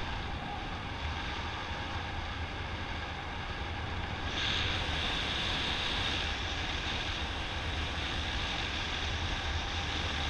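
Wind rushing over the camera microphone of a paraglider in flight: a steady low rumble with a hiss on top, growing a little louder and brighter about four seconds in.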